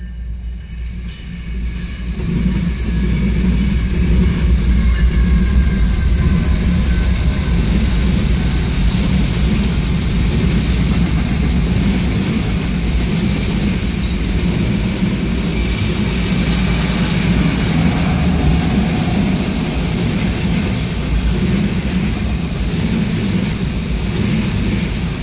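BNSF freight train passing. The sound of its diesel locomotives builds over the first two seconds, then autorack cars roll by in a steady rumble of steel wheels on rail.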